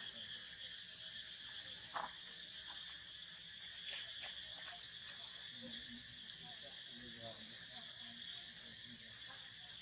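Steady, high-pitched drone of an insect chorus, with a few sharp clicks on top.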